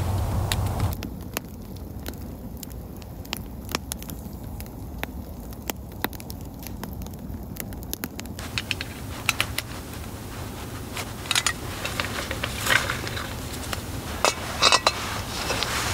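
Wood fire crackling with scattered sharp pops, after a low rumble in the first second. From about halfway, louder rustling of a down jacket and metal clicks and scrapes follow as a gas canister and its burner are handled.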